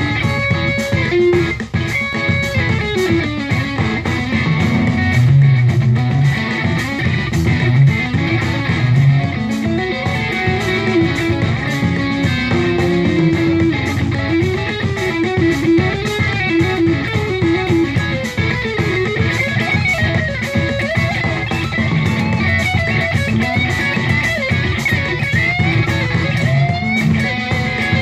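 Electric guitar played continuously in long single-note melodic lines, worked as sequences in 7/8 time.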